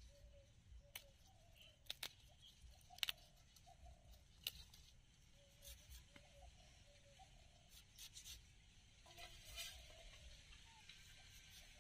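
Cauliflower being cut into florets on a boti, a floor-mounted curved blade: sparse, crisp snaps of stalks breaking and being sliced, at irregular intervals.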